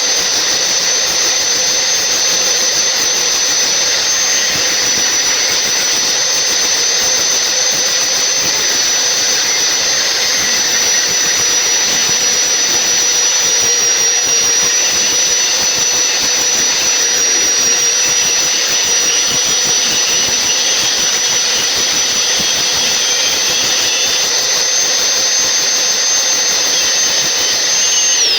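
Large-blade log saw running, sawing through a log: a steady high whine over a constant hiss of cutting. The whine drops sharply in pitch right at the end.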